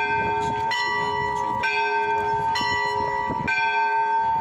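Church bells struck in a steady pattern, about one stroke a second, alternating between two notes, each stroke ringing on into the next. Crowd chatter is faintly underneath.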